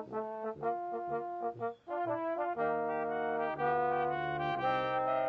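Brass band playing: a run of short, separated notes, a brief break just before two seconds in, then long held chords.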